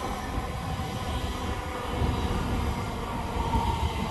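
Greater Anglia electric train running past: a steady low rumble, with a faint high whine near the end.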